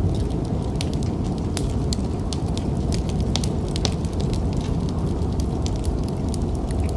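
Wood fire crackling and popping in a fireplace: many sharp, irregular pops over a steady low rumble of storm wind.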